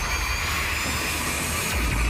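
Intro-animation sound effect: a steady whooshing rush over a low rumble, with faint music underneath.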